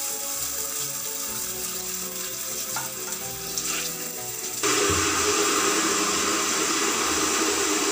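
Water running from a handheld shower hose, as a steady hiss that turns into a louder spray splashing on the tile floor a little past halfway.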